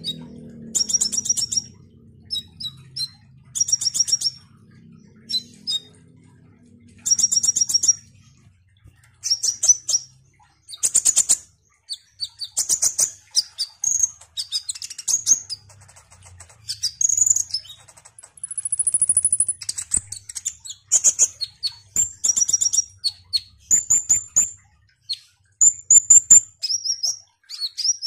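Male copper-throated sunbird (kolibri ninja) singing vigorously: bursts of rapid, high-pitched chirps and trills with short pauses between them, and a thin, high whistle held for about a second and a half a little past the middle.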